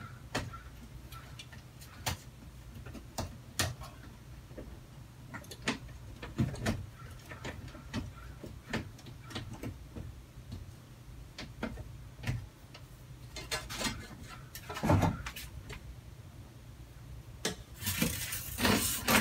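Scattered clicks and light metallic knocks of bolts, nuts and tools as an automatic vent opener is fitted to a greenhouse's metal roof-vent frame, with bursts of rubbing and scraping about three quarters of the way in and near the end, over a steady low hum.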